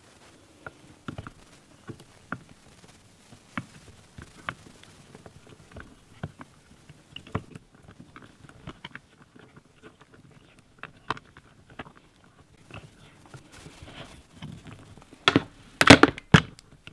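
Vinyl electrical tape being pulled off the roll and wound around a small metal part, with scattered small crackles and clicks, then a short burst of louder clicks and clatter near the end as the air gun is handled.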